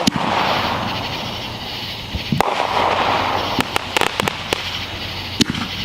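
Consumer fireworks going off: a steady hiss with a string of sharp bangs, a strong one about two and a half seconds in, a quick cluster around four seconds, and another near the end.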